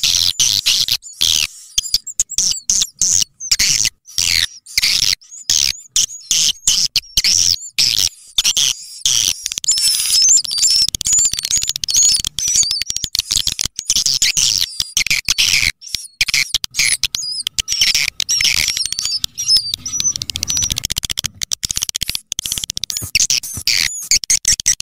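Swiftlet call recording (suara panggil walet): rapid, high-pitched chirping and twittering of edible-nest swiftlets, chopped into quick stuttering pulses. It is a lure track, played loud through an amplifier and speakers to draw swiftlets into a nesting house.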